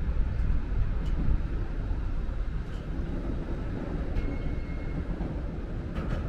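Freight train of tank wagons rolling past close by: a steady low rumble of steel wheels on the rails, with a few light knocks and a brief faint squeal about four seconds in.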